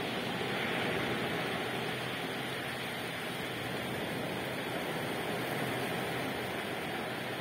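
Ocean surf breaking and washing up the shore: a steady rushing wash of water, a little fuller about a second in.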